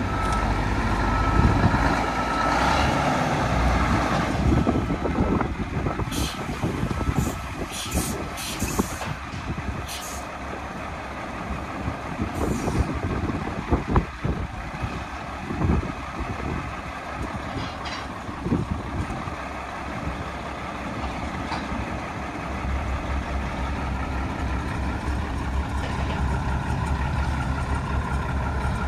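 1972 Mack RL600L dump truck's engine running at idle, with several short hisses of air from its air brake system between about 6 and 13 seconds in.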